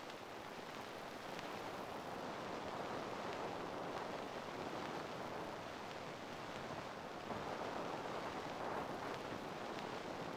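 Large fire burning: a steady rushing noise with faint crackles, swelling slightly a few seconds in and again near the end.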